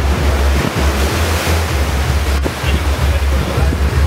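Wind rumbling on the microphone over the steady rush of sea surf.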